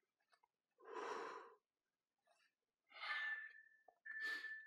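A man's heavy breathing during bodyweight exercise: three noisy exhales, about a second in, about three seconds in and just after four seconds. A thin steady high tone sounds under the last two.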